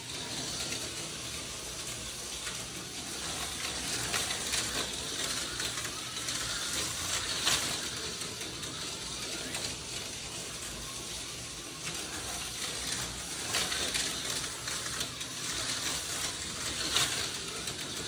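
TYCO HO-scale slot cars running on the track: a steady hissing whir that swells and fades a little as the cars go round, with an occasional click.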